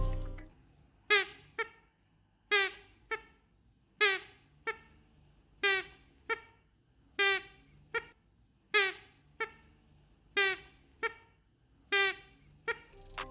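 Squeaky dog toy squeezed eight times in a steady rhythm. Each squeeze gives a squeak that falls in pitch, followed by a shorter, weaker squeak as the toy is let go and refills with air.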